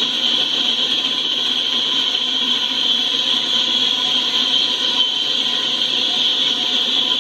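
Empty coal train rolling past, a steady rushing of steel wheels on rail with a strong high hiss.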